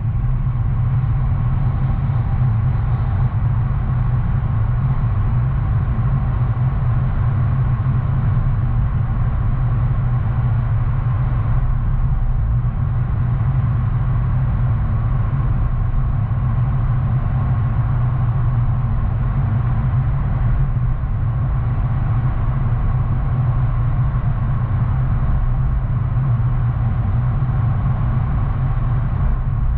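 Steady low rumble of a car driving, its engine and tyre noise unchanging, with no sudden sounds.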